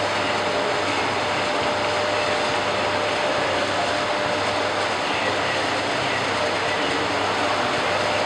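Steady running-train noise, an even, unbroken sound of trains on rails.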